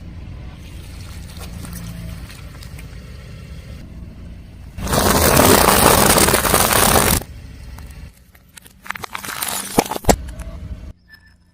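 Car tyre rolling slowly over objects and crushing them: a low rumble, then a loud rushing burst lasting about two seconds, then scattered crackles and snaps.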